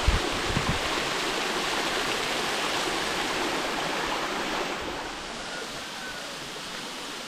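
Waterfall rushing close by: a steady, even roar of falling water, with a few low bumps in the first second. It grows somewhat quieter about five seconds in.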